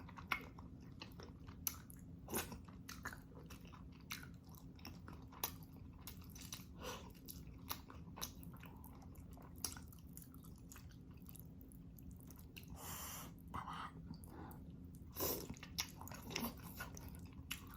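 A person eating close to the microphone: soft chewing with scattered wet mouth clicks and smacks at irregular intervals, over a faint steady low hum.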